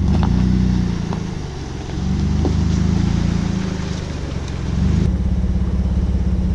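A four-wheel-drive vehicle's engine running at low revs as it crawls over a rough dirt trail. It dips twice as the throttle eases and picks up again about five seconds in, with a few faint knocks over it.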